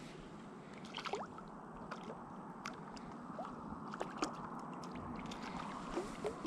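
Running stream water with small splashes and sloshes close by, and scattered light clicks.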